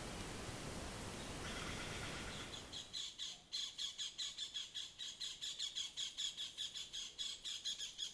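Steady hiss of a trail camera's microphone, then, from about three seconds in, a rapid run of short high-pitched chirping calls, about four a second, from a small animal.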